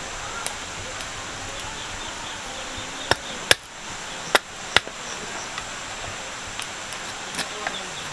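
Machete chopping into a stick of wood: four sharp strikes in two quick pairs, a little under half a second apart, about three to five seconds in. Night insects chirr steadily in the background.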